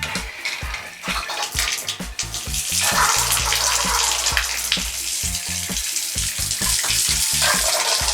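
Water running from a bathroom mixer tap: a steady hissing spray that gets louder about a second in and again about three seconds in. A regular beat of background music runs beneath it.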